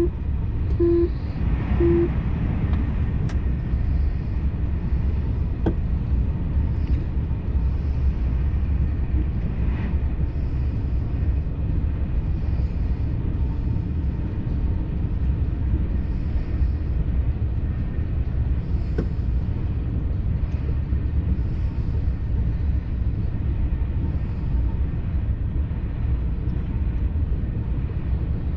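Steady low rumble of a TGV Duplex high-speed train running, heard from inside the passenger cabin. In the first couple of seconds a few short beeps sound about a second apart.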